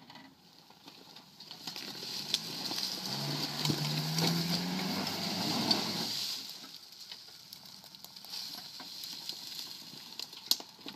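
Suzuki Sidekick's engine pulling under load as the 4x4 climbs a steep slope, its tyres churning and crackling through dry leaves. The engine note rises slowly for a couple of seconds, then drops away about six seconds in, leaving a quieter leaf crackle with a sharp click near the end.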